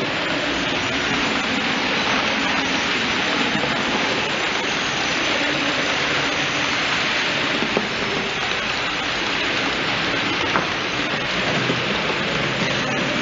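Model freight train, a Roco ÖBB class 1044 electric locomotive with Lima, Jouef and Roco wagons, running steadily along model track: a continuous rolling rattle of small wheels on rail, with a few faint clicks.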